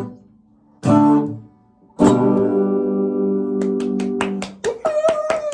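Guitar music with strummed chords: a short strum about a second in, then a chord that rings for about two and a half seconds. A run of sharp clicks follows near the end.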